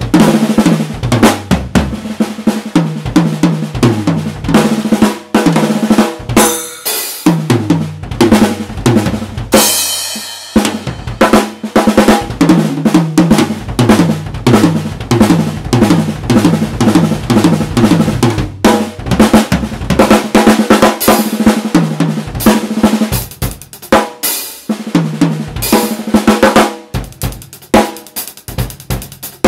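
Acoustic drum kit played solo: fast rolls and fills across the snare, toms and bass drum, with cymbal crashes.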